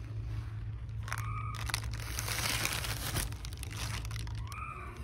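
A plastic bag crinkling and a metal spoon crunching into coarse aquarium gravel as it scoops, louder for a second or so in the middle.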